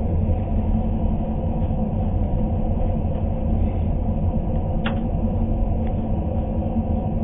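A Trans-Siberian passenger train running, a steady low rumble, with one short click about five seconds in.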